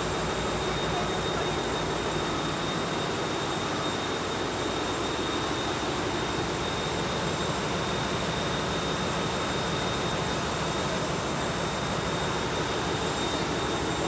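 Large in-line common-rail marine diesel engine running steadily in a ship's engine room, newly started, its rapid firing pulses under a dense, even machinery din with a thin high whistle.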